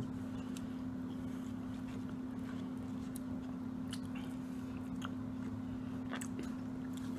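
A person chewing and biting into fried popcorn shrimp, with scattered faint mouth clicks, over a steady low electrical-sounding hum.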